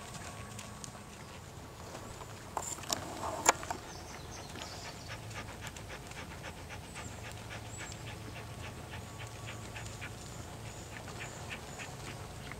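A ridden horse trotting on a sand arena: a steady run of light hoof falls and tack clicks, several a second, with a few louder knocks about three seconds in.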